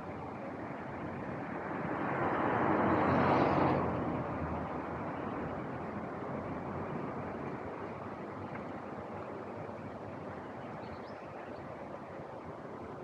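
Street traffic noise with one vehicle passing close by on the road: its tyre and engine noise swells to a peak about three and a half seconds in, then fades back into the steady hum of traffic.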